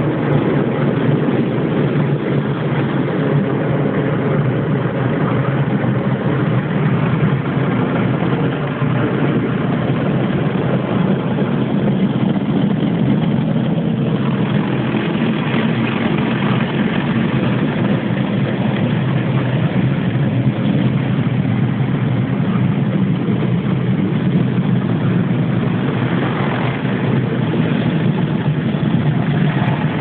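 Automatic car wash running, heard from inside the car's cabin: a steady machinery drone with water washing over the car.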